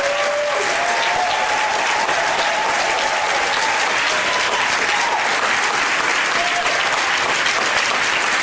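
An audience applauding in a steady round of clapping.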